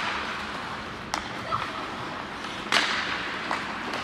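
Ice hockey play: sharp knocks of sticks and puck at the start, about a second in and about three-quarters of the way through, the last followed by a hissing scrape like skates on ice, over the steady background of the rink.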